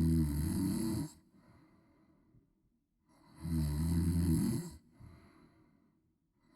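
A woman snoring loudly: one snore ends about a second in and another runs from about three seconds to nearly five, each with a low, pitched buzz, and faint breathing between them.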